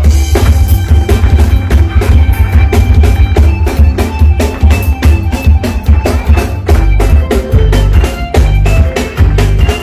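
Dance music with a heavy bass line and a drum-kit beat, played loud.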